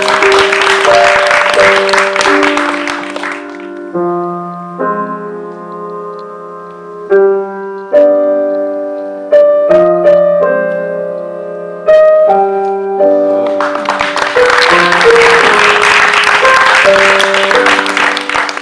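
Piano music playing slow held chords. Audience applause rises over it for the first three seconds or so, then again from about two-thirds of the way in.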